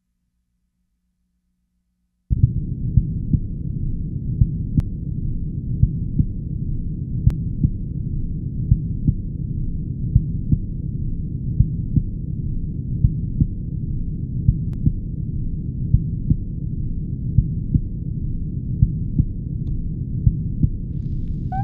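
A muffled, low rumbling noise from a turntable-and-DJ-mixer improvisation cuts in abruptly about two seconds in and runs on with a regular throbbing pulse, about three beats every two seconds.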